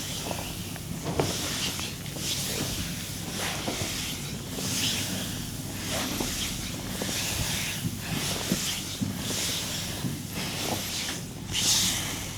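Repeated swishing strokes of skin being rubbed in a massage, roughly one a second, with a few sharp clicks among them.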